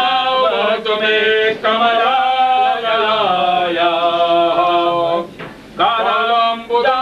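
Male voices chanting a mantra in long, held notes, with a short pause for breath about five seconds in.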